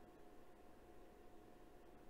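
Near silence: faint room tone with a thin steady hum.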